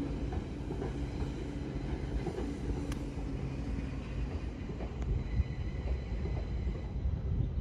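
A train running, heard as a steady low rumble with a two-pitched hum that fades out about four seconds in.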